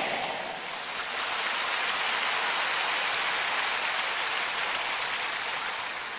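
A large congregation applauding steadily, the clapping beginning to die away near the end.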